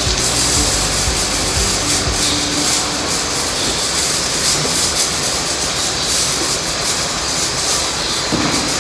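Steady, loud rushing noise of a dairy milking shed's plant running during milking.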